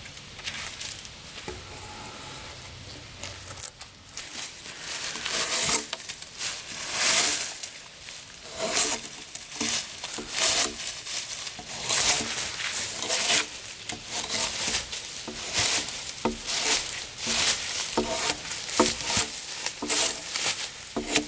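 Drawknife scraping along a freshly felled log, peeling off long strips of bark. Quieter at first, then repeated pulling strokes about once a second from around four seconds in.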